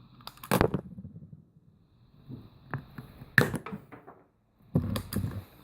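Pliers cutting through a small Christmas tree branch: sharp snaps and cracks about half a second in, again in the middle, and a cluster near the end, with fainter crackling between.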